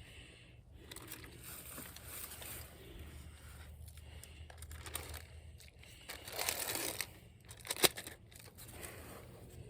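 Plastic packaging rustling and crinkling as it is handled. There is a louder burst of crinkling about two-thirds of the way in, followed by a single sharp click.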